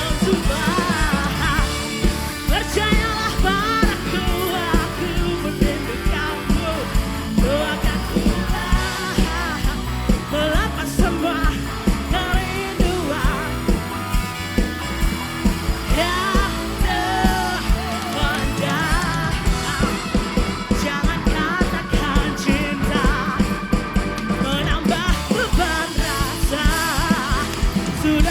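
Live dangdut band music with a steady, regular beat and a wavering lead melody line with vibrato.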